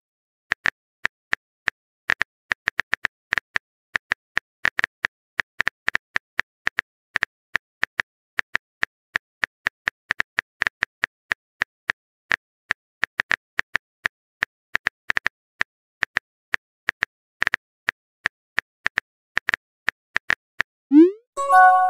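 Simulated phone keyboard typing: a long run of short, sharp key clicks at an irregular pace of about three a second. Near the end a rising pop with a short chime, the texting app's sound for a new message appearing.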